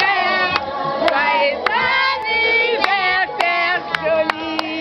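A group of people singing together, with sharp hand claps about twice a second.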